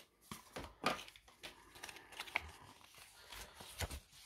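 Faint, irregular rustling and crinkling of paper being handled as a folded leaflet is taken out of the packaging, with a few short taps.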